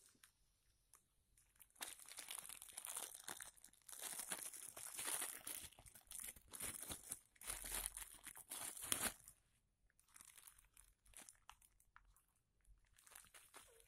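Plastic bubble wrap crinkling and rustling as it is unwrapped by hand, busiest from about two seconds in to about nine seconds, then softer scattered crackles.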